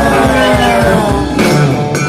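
Live band playing loudly over a festival PA: electric guitar and bass over drums, with sustained notes sliding downward and a sharp hit about one and a half seconds in.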